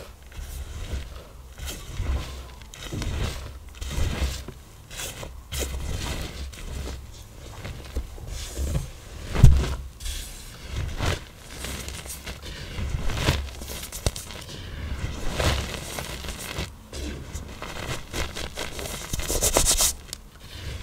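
Hard-pressed black iron oxide blocks being crushed, crunching and crumbling into powder in a run of irregular crunches, the loudest about nine seconds in, with a softer hissing crumble near the end.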